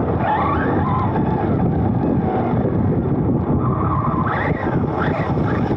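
Onboard sound of a Serpent SRX2 2wd electric RC buggy on artificial turf: a steady rumble and rattle of the chassis and tyres over the turf, with the electric motor's whine rising and falling with the throttle, clearest about four to five seconds in.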